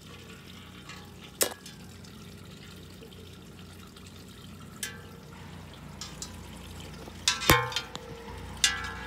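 A few sharp knocks and clicks from handling, over a steady low hum, with a small cluster of them a little past the middle.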